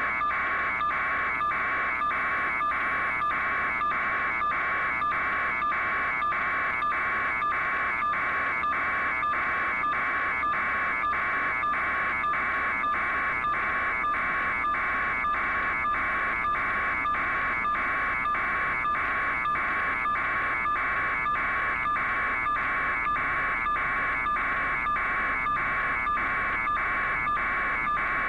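A steady electronic buzz pulsing about twice a second, unchanging throughout.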